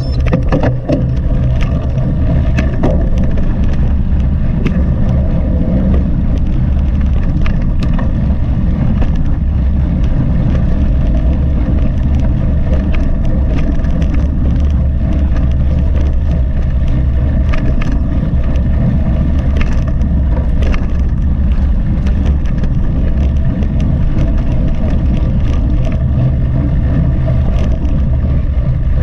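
Mountain bike being ridden at speed: a steady low rumble of wind on the camera's microphone and tyres rolling over the trail, with frequent clicks and rattles from the bike over rough ground.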